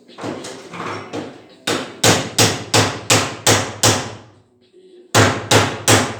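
Hammer blows: a few lighter taps, then a steady run of about seven hard strikes at nearly three a second, a short pause, and another run of strikes near the end.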